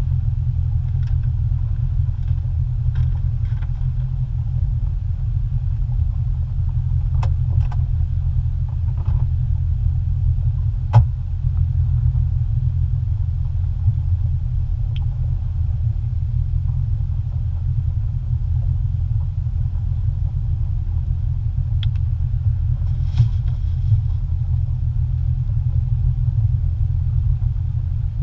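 Boat engine running steadily at slow cruising speed: a deep, even rumble, with a few light clicks and knocks now and then.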